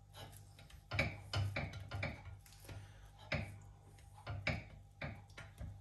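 Short scrapes and knocks of a utensil spreading melted chocolate over a pancake, about seven of them spaced unevenly, over a steady low hum.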